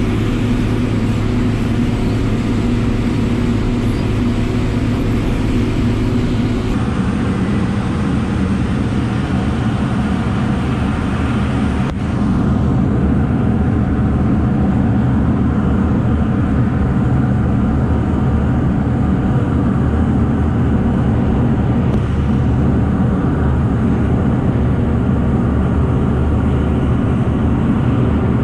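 Diesel engines of heavy farm machinery running steadily while harvesting maize. The sound changes abruptly twice, about a quarter of the way in and again just before halfway.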